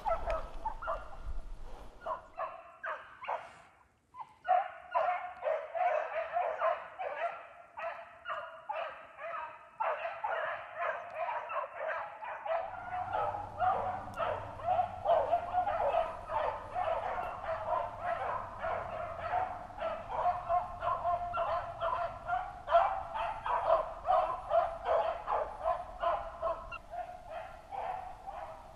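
A pack of beagles giving voice on a rabbit track: many overlapping, rapidly repeated bawls and yips as the hounds run the rabbit, with a brief break about four seconds in.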